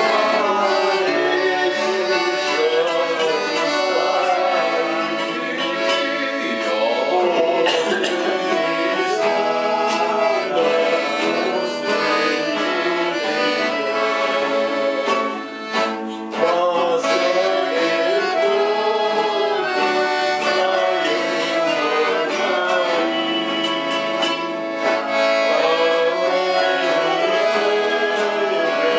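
Piano accordion and acoustic guitar playing a folk song together, with a man singing along.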